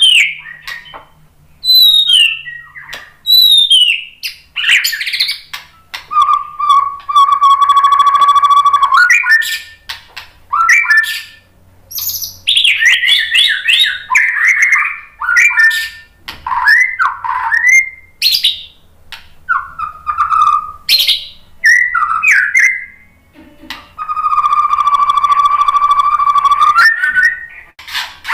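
White-rumped shama (murai batu) singing a loud, varied song: quick falling whistles and fast chattering phrases. Twice it holds a long steady note for about three seconds.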